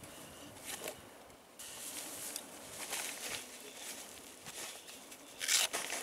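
Army Gore-Tex jacket fabric rustling as it is handled, shaken out and pulled on, with a louder swish about five and a half seconds in.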